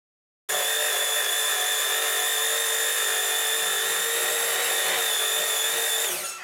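Electric hand mixer with dough hooks kneading dough, running with a steady motor whine that starts suddenly about half a second in. Near the end it is switched off and the whine falls in pitch as the motor spins down.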